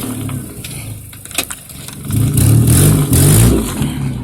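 A car engine revving in loud swells: one dying away early, another building about two seconds in and easing off near the end.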